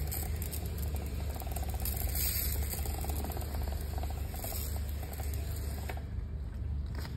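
Hand-held pressure sprayer misting wheel cleaner onto a car wheel: short hisses of spray, one at the start, another about two seconds in and a shorter one around four and a half seconds, over a steady low hum.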